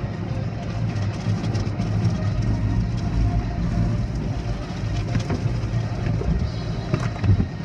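Automatic car wash running, heard from inside the car's cabin: a steady low rumble of machinery under a hiss of water spraying onto the windshield, with a knock near the end.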